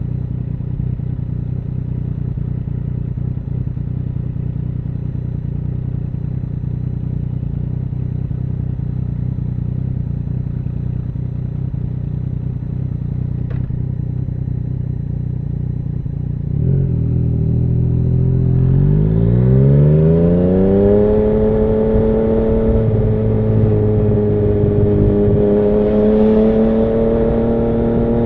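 2017 Yamaha MT-09's 847 cc inline-three running through an Akrapovic full exhaust. It runs steadily at low revs for about sixteen seconds, then the revs rise as the bike pulls away and settle into a steady, louder cruising note that climbs slowly near the end.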